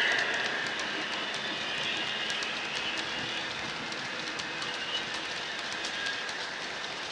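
Model railway box wagons rolling past, their wheels clicking rapidly over the rail joints, while the sound-fitted model Class 56 locomotive's diesel engine sound from its EM1 speaker fades in the first second and stays faint.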